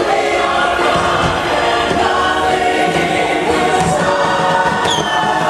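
Ride soundtrack over the attraction's speakers: a choir singing over music, with a short falling whistle near the end.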